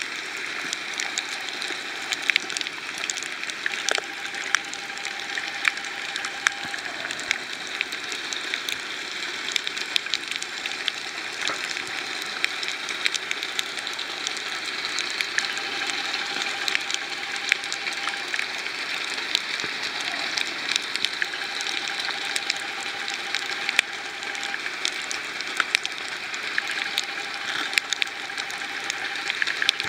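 Underwater reef ambience picked up by a submerged camera: a steady hiss with many sharp clicks and crackles, and a faint hum that comes and goes.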